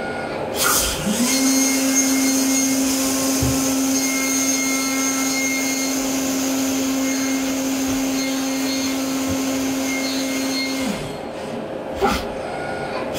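Brother SPEEDIO U500Xd1 machining centre spindle running a 100 mm face mill at 16,000 rpm: a steady hum rises in about a second in, holds for about ten seconds, then winds down. Under it runs the hiss of coolant spray and cutting, with brief noisy bursts near the start and near the end.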